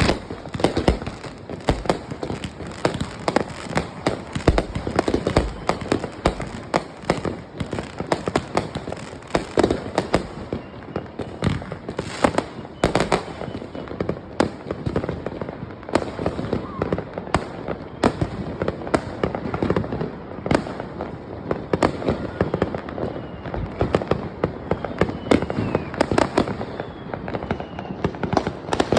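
Fireworks and firecrackers going off in a dense, continuous barrage: many sharp bangs and pops a second, overlapping one another throughout.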